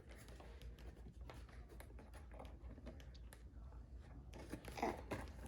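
Faint clicks and rustles of hands working at toy packaging, opening the fastenings that hold a toy kitchen set in its box.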